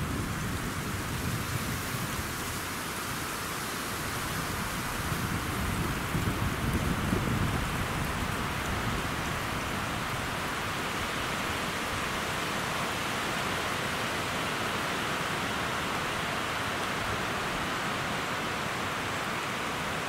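Steady wind rushing through pine trees. Gusts rumble low on the microphone about six to eight seconds in.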